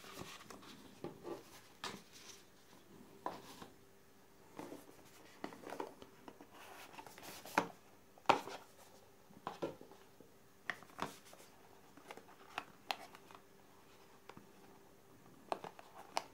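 Paper cards and a small white cardboard box being handled: scattered light taps, scrapes and rustles, the two loudest knocks just past halfway as the box is pulled apart.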